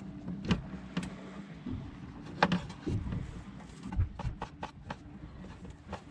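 Knife chopping tomatoes into large pieces: a string of irregular knocks, a few at first and then several a second after about four seconds, over a steady low hum.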